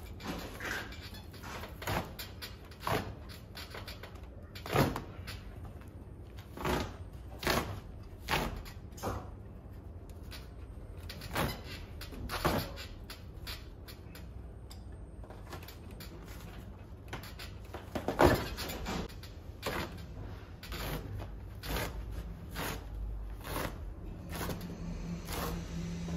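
Black fabric dust cover being ripped off the underside of a sofa frame: a string of sharp snaps and tearing sounds as it pulls free of the wooden frame, about one every one to two seconds, the loudest about eighteen seconds in. A low steady hum comes in near the end.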